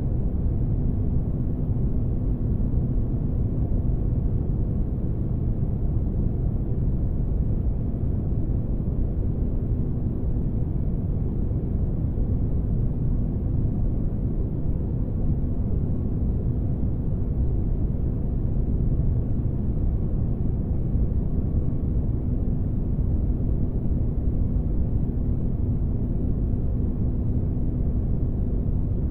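Sci-fi spaceship ambience: a steady, deep rumbling noise with a faint constant hum, unchanging throughout, used as sleep white noise.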